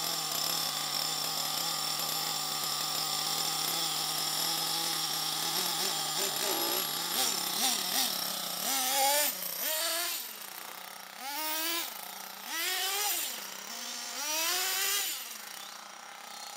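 Two-stroke nitro engine (HPI Savage XL 4.6 cc) of an HPI Trophy Truggy RC car, idling steadily for about eight seconds. It is then revved in a string of throttle bursts, each a rising whine that drops back, as the truggy accelerates away.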